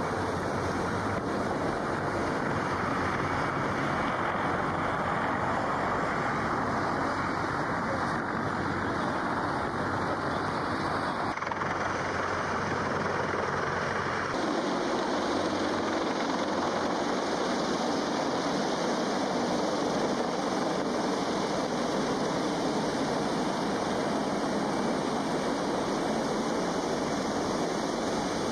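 Steady rotor and engine noise of a CH-53 heavy-lift helicopter overhead, with wind on the microphone. The sound shifts in character twice, about a third and half of the way through.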